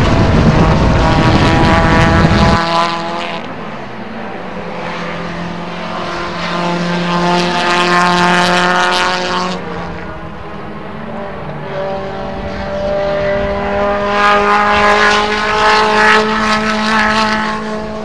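Small-displacement racing sedan engine heard onboard under race load. A loud low rumble cuts off suddenly about two and a half seconds in. The engine note then climbs through the revs, drops back at a gear change about ten seconds in, and climbs again.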